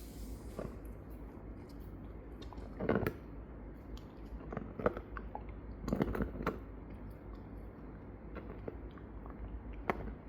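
Shiba Inu gnawing on a bone: irregular bites and crunches, the loudest about three and six seconds in.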